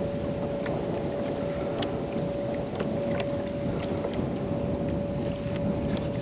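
Wind buffeting the microphone over choppy water around a fishing kayak. A faint, steady high hum runs throughout, with a few light clicks scattered through it.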